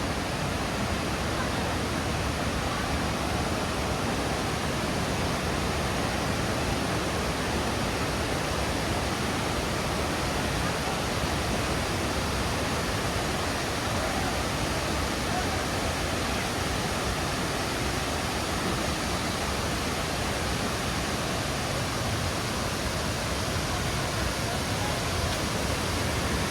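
Steady rushing roar of a large waterfall, Iruppu Falls, with water pouring down continuously and no distinct events.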